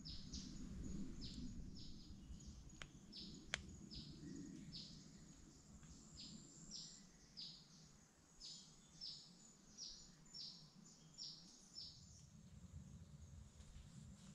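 A bird calling over and over in the forest at dusk: short high chirps, each dropping in pitch, repeated evenly nearly twice a second, over a faint steady high tone. A sharp click stands out about three and a half seconds in.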